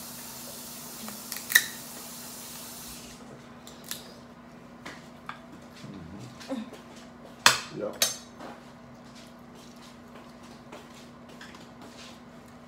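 Scattered clicks and clinks of cutlery and dishes at a seafood-boil dinner table, with sharper clinks about a second and a half in and twice around seven and a half to eight seconds. A steady hiss fills the first three seconds, over a faint steady hum.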